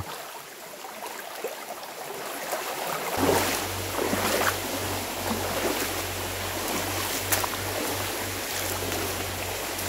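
Rushing water of a rain-swollen creek, a steady hiss. About three seconds in, a low rumble joins it and keeps breaking off and coming back.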